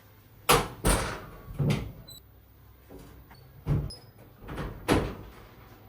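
A series of about six sharp knocks and thuds, irregularly spaced, with a few brief faint high beeps between them.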